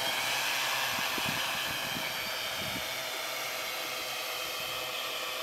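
Quadcopter drone hovering at a distance: a steady whir of its motors and propellers, getting slowly a little quieter.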